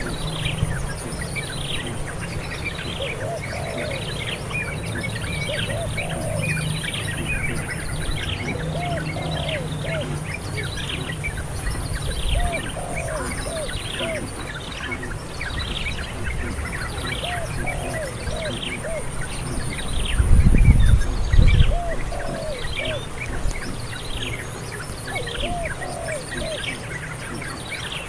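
Several birds chirping, a steady run of short falling chirps, with a lower call repeating every second or two, over a steady high insect buzz. About twenty seconds in, a low rumble of wind or handling noise passes for a second or two.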